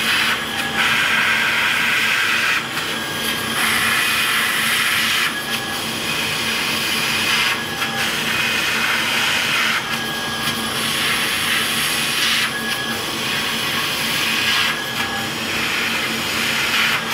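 Laser cutter at work, a hiss that comes in stretches of about a second and a half, about seven times, with short breaks as the head moves between pieces. Under it runs a steady low hum.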